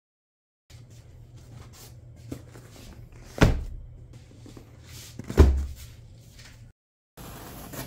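Cardboard shipping box being handled and set down on a table, with light rustling and two heavy thumps about two seconds apart. The sound cuts off suddenly near the end.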